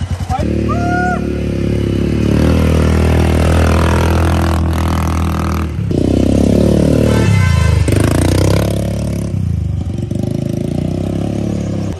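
Quad bike (ATV) engine running under throttle as it is ridden. The note rises and falls with the throttle, dropping sharply as it slows about six seconds in, then picking up again.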